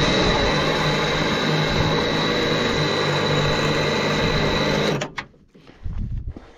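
Electric motors of a trailer-mounted winch and the trailer's hydraulic tilt pump running steadily under load, with a high whine over a low hum, pulling the tilt deck down. They cut off suddenly about five seconds in, followed by a few knocks.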